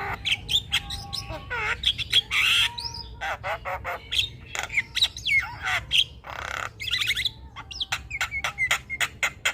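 Javan myna (jalak kebo) calling nonstop: rapid dry clicks mixed with harsh squawks and short gliding whistles, two of the squawks longer and rasping.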